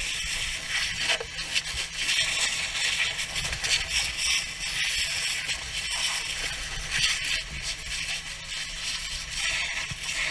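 Water from a fire hose spraying onto burning rubbish: a steady hiss full of crackling and scraping, over a low rumble.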